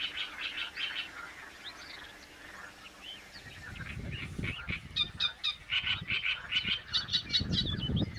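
Birds calling, many short chirps in quick succession. About halfway through, a low rumbling noise joins in under the calls.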